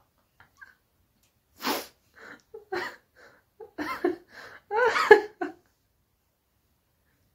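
One sharp breathy burst, then a run of short, high-pitched, wavering vocal cries lasting about three seconds.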